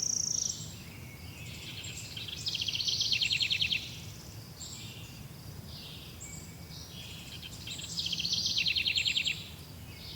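Songbirds singing: one bird repeats a loud, rapid trill of about a second, twice, roughly five and a half seconds apart, while other birds add short chirps and a held high whistle at the start.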